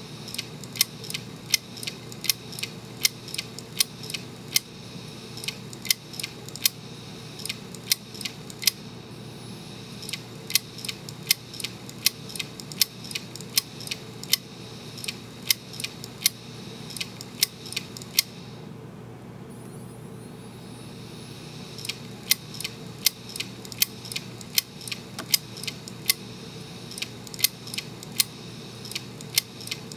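Opened hard disk drive running with a steady whir from its spinning platter and motor. Over it come sharp ticks from the head actuator arm seeking, about two to three a second, with a pause of about three seconds past the midpoint.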